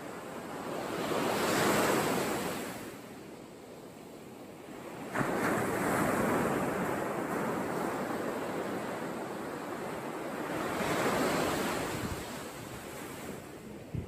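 Surf breaking and washing up a sandy beach: a steady rush that swells and fades every few seconds, rising sharply about five seconds in.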